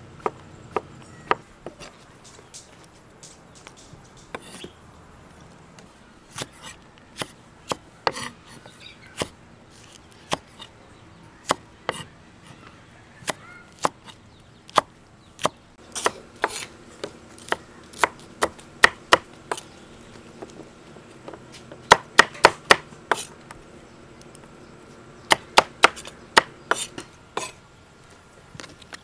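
Kitchen knife chopping vegetables on a wooden chopping board: sharp knocks of the blade on the wood, some spaced out and some in quick runs of several, stopping near the end.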